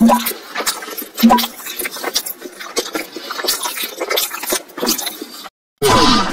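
Cartoon eating sound effect: crackly crunching and munching of crisp golgappe (pani puri), with sharp clicks throughout. Near the end, a short whistle-like tone falling in pitch.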